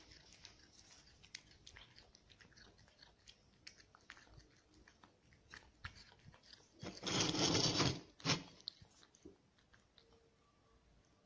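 A cat eating off a plate: chewing as a string of small, soft clicks, with one louder noisy burst lasting about a second around seven seconds in.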